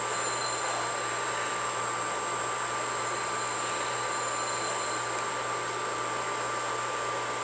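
A steady, unchanging hum and hiss with a faint high whine, like a small motor or fan running.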